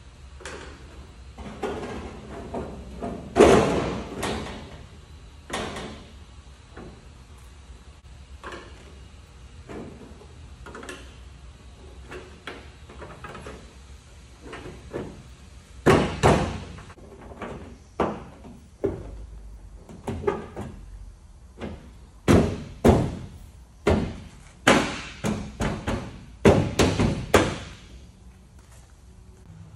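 A bare car door shell hung on a stand is struck and knocked repeatedly, giving hollow bangs with a short ringing tail. There is one loud bang a few seconds in and lighter scattered knocks, then a quick run of loud bangs in the second half.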